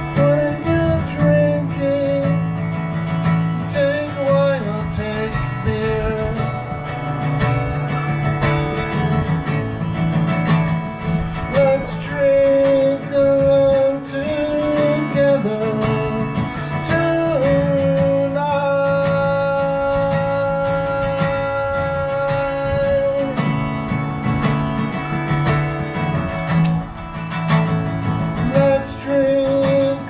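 Solo guitar playing a slow song, with a melody line of long held notes over the chords and no recognisable words.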